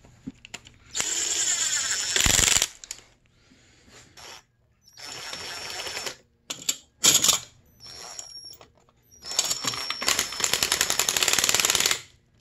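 Handheld power tool running in several short bursts with a high motor whine. The longest burst, near the end, lasts about two and a half seconds.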